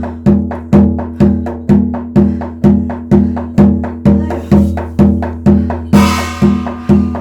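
Ritual music: a drum beaten in a steady, even beat of about two strokes a second, each stroke ringing on. A cymbal crash comes in about six seconds in.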